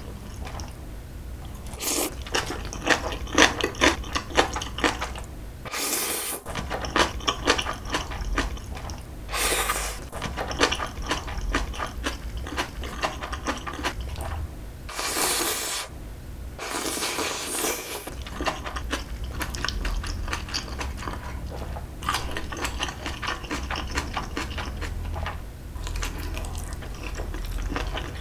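Close-miked eating: instant noodles slurped up in several short bursts, with wet chewing and small clicks of food in the mouth between them.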